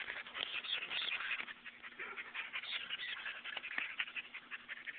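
Pit bull panting and snuffling close to the microphone, mixed with rustling and handling noise.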